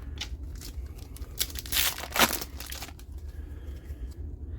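Trading card booster pack wrapper crinkling and tearing as it is handled and opened, with the loudest rustles about two seconds in.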